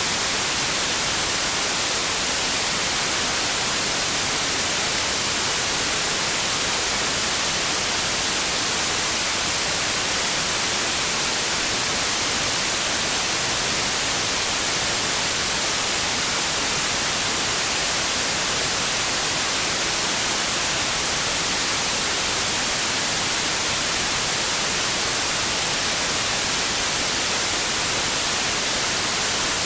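Steady white noise: an even, unchanging hiss, strongest in the high pitches.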